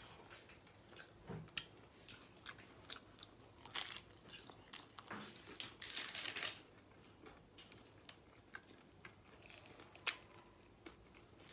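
A person biting and chewing a crispy pizza slice close to the microphone: faint, irregular crunching crackles, the loudest about four, six and ten seconds in.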